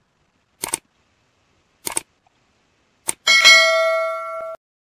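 Mouse-click sound effects: two clicks about a second apart, each a quick press-and-release, then a third click followed by a bell-like notification chime that rings for about a second and cuts off abruptly.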